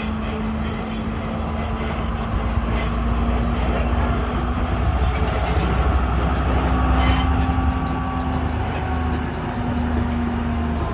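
Diesel train running with a heavy low rumble and a steady engine hum, growing louder over the first several seconds.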